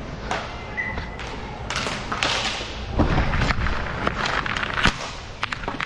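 Ice hockey play: sharp clacks and dull thuds of sticks and puck, several in a row, the loudest about three seconds in and near five seconds, with skates scraping across the ice between them.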